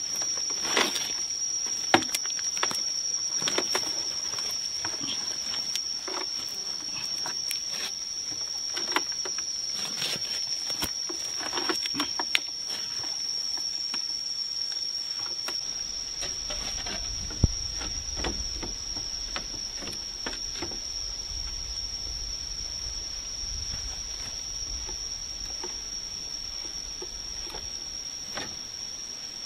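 A steady high-pitched insect drone over forest ambience, with scattered knocks, clicks and rustles of bamboo poles being handled and lashed to a tree trunk, busiest in the first half. A low rumble joins about halfway through.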